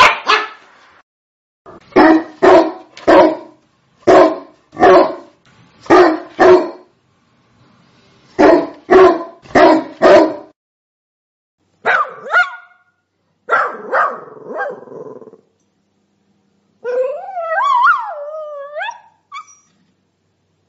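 A dog barking in quick runs of two to four barks with short pauses between. Near the end the barking gives way to a wavering, sliding howl.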